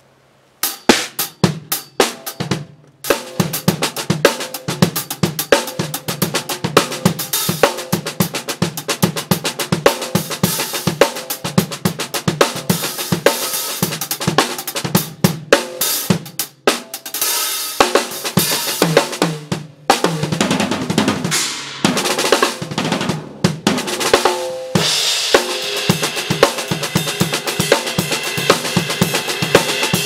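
Acoustic drum kit played in a sound-check groove: kick, snare, hi-hat and cymbals hit in quick, dense patterns, starting about a second in. Around two-thirds of the way through come heavier low drum hits, and the last few seconds carry a steady wash of cymbals over the beat.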